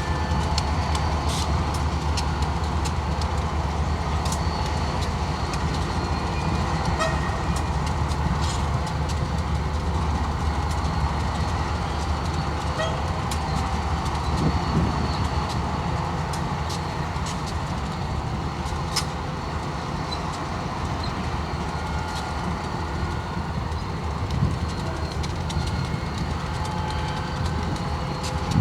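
Diesel freight locomotives running at low speed, a steady low engine rumble with scattered sharp clicks and knocks from the wheels and rail cars.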